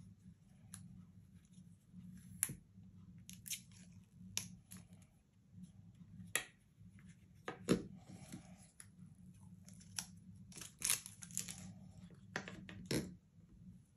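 Packaging being opened by hand: irregular sharp snips and clicks with short bursts of crinkling and tearing, over a faint steady low hum.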